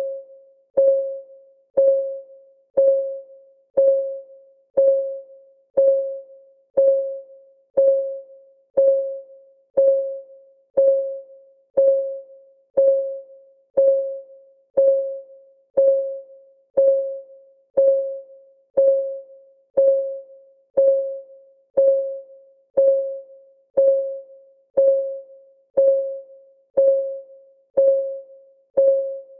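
Countdown-timer clock ticking sound effect: one tick a second, steady and even, each a sharp click with a short ringing note that dies away before the next.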